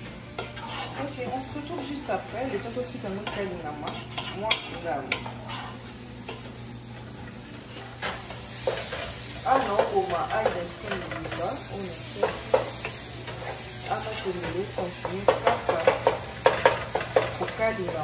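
Wooden spoon stirring and pressing cooked leafy greens in a pot, with irregular scrapes and knocks against the pot's side, over a sizzle from the hot pot.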